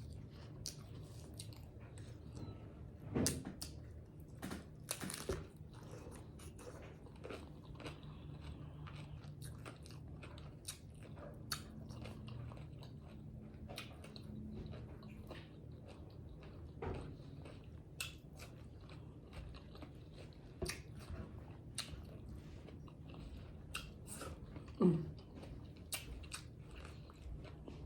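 Close-miked chewing and crunching of small tacos, with many small wet mouth clicks and a few louder bites.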